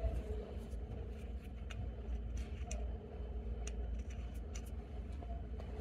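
Light, irregular metal clicks and ticks as the finial tip of a brass ball bearing hinge is handled by hand and fitted back onto the top of the hinge knuckle. A steady low hum runs underneath.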